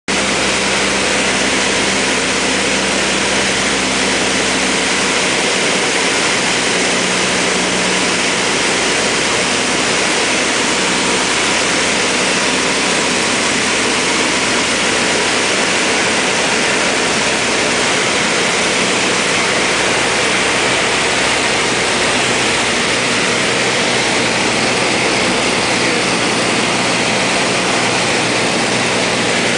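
Small Cessna's piston engine and propeller running in a steady drone, mixed with the rush of airflow, heard from inside the cockpit in flight.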